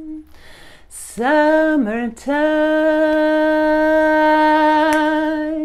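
A woman singing unaccompanied: a short sliding note about a second in, then one long steady held note for over three seconds, wavering slightly with vibrato near its end.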